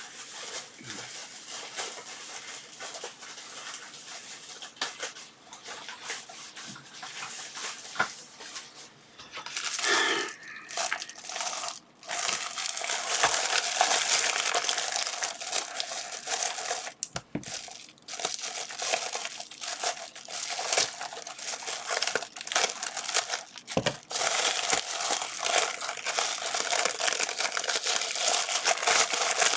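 Plastic packaging bags rustling and crinkling as they are handled and opened, with many small crackles, louder in the second half.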